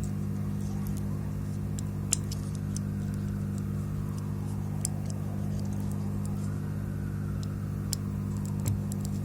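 Steady low electrical hum on the workbench, with a few small clicks and taps from handling parts and tools.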